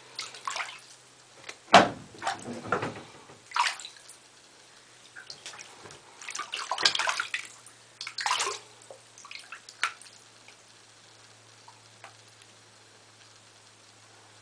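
Shallow water in a bathtub being splashed and slapped by a Bengal cat's paw: irregular splashes in short clusters, the sharpest about two seconds in, with quieter dabs later.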